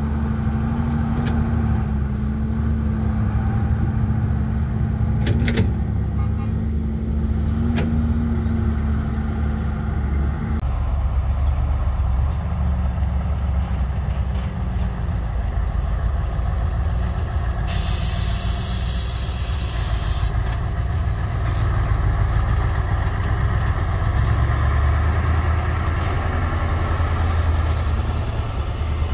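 Fully loaded Tata dump truck's diesel engine running under load as the truck pulls up out of the pit and drives along a dirt track. A steady whine stops abruptly about a third of the way in, and a hiss of air, like an air-brake release, lasts a few seconds a little past the middle.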